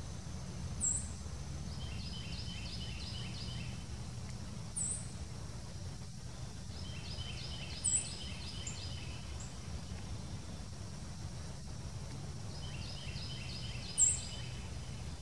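Northern cardinals giving short, sharp, high chip calls, four of them several seconds apart. Behind them a bird repeats a phrase of about six quick notes three times, over a steady low rumble.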